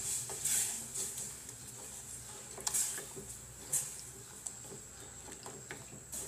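A spatula stirring a sugared agar-agar and water mixture in a metal saucepan: soft, irregular swishes and scrapes, with a few light taps against the pan.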